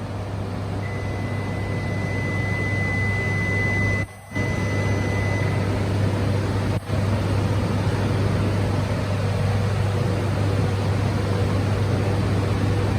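Steady low mechanical hum with hiss, of the kind made by the electrical and ventilation equipment of a train or station, with a thin high steady tone for about five seconds near the start. The sound drops out briefly about four seconds in and again around seven seconds in.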